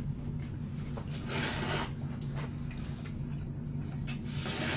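Noodles slurped up from chopsticks twice, each slurp about half a second long, one about a second in and one near the end, over a low steady hum.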